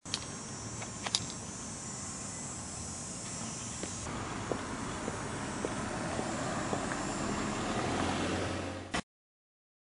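Outdoor ambience: a steady wash of background noise with a few faint clicks. A high hiss drops out partway through, a low hum rises later, and the sound cuts off abruptly near the end.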